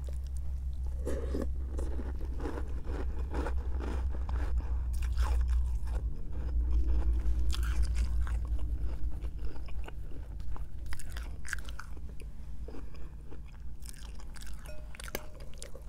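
Close-up crunching and chewing of Cap'n Crunch's Christmas Crunch corn-and-oat cereal in milk, many short crisp crunches one after another, over a steady low hum.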